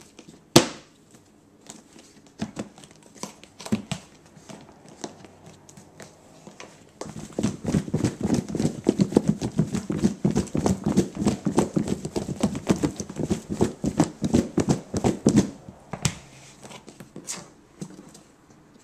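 Plastic food storage container with a snap-on lid being handled with a few clicks and taps. About seven seconds in it is shaken hard for about eight seconds, raw chicken wings and dry seasoning thudding and rattling inside. A few more lid clicks follow near the end.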